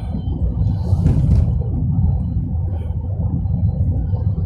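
Cabin noise inside a Tata Tiago hatchback on the move: a steady low road and engine rumble on a rough road, with the air conditioning running. A brief burst of noise comes about a second in.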